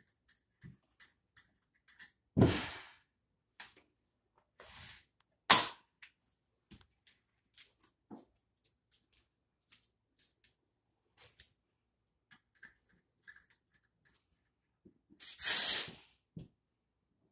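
Hand tools and fittings being handled at the base of a refrigerator: scattered light clicks and knocks, a loud clack about two and a half seconds in and a sharp click a few seconds later, then a hiss of about a second near the end.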